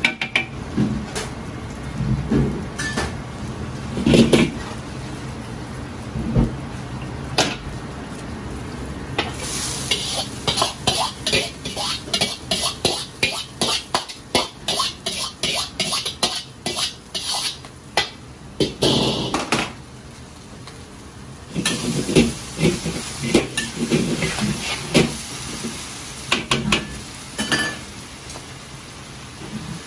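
Stir-frying in a wok: food sizzling while metal utensils clank and scrape against the wok. About a third of the way in comes a quick, even run of strikes lasting several seconds.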